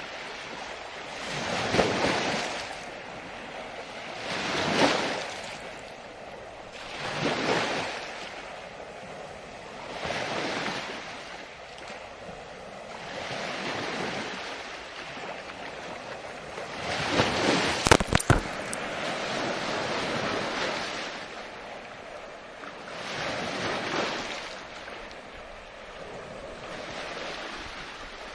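Ocean surf, waves swelling and falling away every two to four seconds. About two-thirds of the way through, a brief cluster of sharp clicks stands out over the waves.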